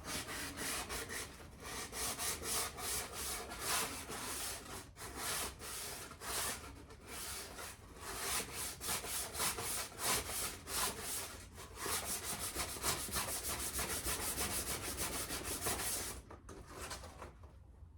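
An old steel axe head's edge being sharpened by hand with an abrasive: quick rubbing back-and-forth strokes, several a second, with a few short pauses. The strokes stop about two seconds before the end.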